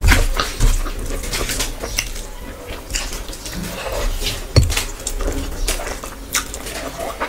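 Eating rice and curry by hand: fingers mixing food on a steel plate, chewing and mouth clicks, with many short sharp clicks and a louder knock about four and a half seconds in.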